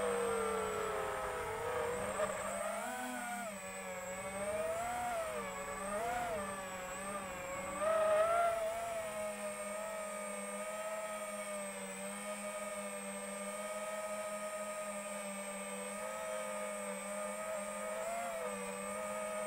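FPV quadcopter's motors whining, heard from the onboard camera, the pitch rising and falling with the throttle as it manoeuvres. About eight seconds in it settles to a steady whine as the quad sits on the ground with its motors still spinning.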